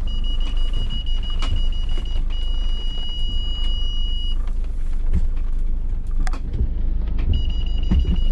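Mercedes Sprinter's parking-sensor alarm sounding as one continuous high tone. It breaks off briefly about two seconds in, falls silent from about four seconds to about seven, then comes back. A solid tone like this means an obstacle is very close, here the brush along the narrow track. Under it runs the low rumble of the van crawling along, with occasional clicks and knocks.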